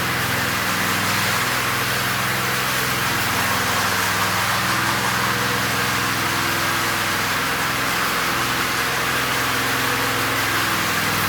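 Small petrol engine of a concrete power trowel running steadily, its pitch wavering slightly.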